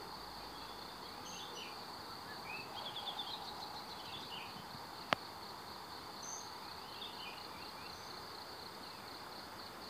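Outdoor ambience of a steady, pulsing insect trill with birds chirping now and then, and a single sharp click about five seconds in.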